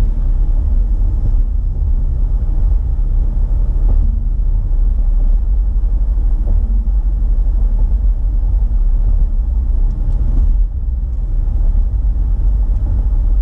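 Steady low rumble of a car driving at highway speed, with road and engine noise heard from inside the cabin.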